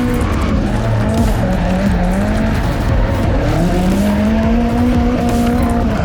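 Turbocharged Holden VS Commodore drift car's engine revving up and down under tyre squeal as it drifts. The engine note climbs about four seconds in and holds high until near the end.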